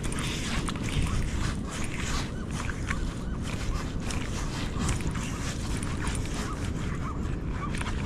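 Strong wind buffeting the microphone in a rough, uneven rumble, with many small ticks of rain spattering over it.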